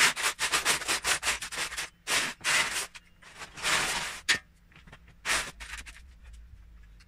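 Loose Lego bricks rattling and clattering as a hand rummages and sifts through them in a plastic storage tub, in several spells of searching that die away near the end.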